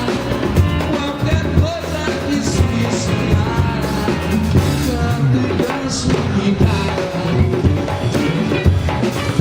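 Live band music with a drum kit playing a steady beat under a singing voice.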